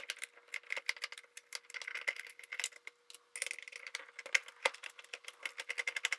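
Socket ratchet clicking rapidly while backing off small 8mm nuts, in runs of fine clicks with a short pause about three seconds in.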